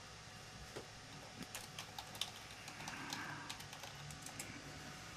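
Computer keyboard being typed on: a run of faint, irregular key clicks.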